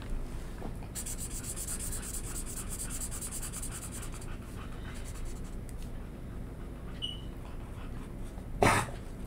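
Felt-tip marker scribbling on paper, colouring in a small area with quick strokes, most busily for about three seconds and more softly after. A brief louder sound near the end.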